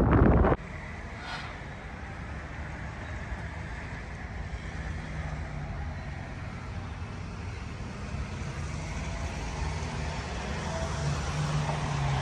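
Wind buffeting the microphone for about half a second, then a sudden change to the steady rumble of road traffic, with a low engine hum getting louder near the end.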